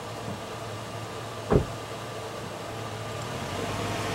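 Chevy Avalanche pickup's V8 engine running at low speed as the truck creeps forward on a dirt track, tyres crunching, growing steadily louder as it approaches. A single loud thump about a second and a half in.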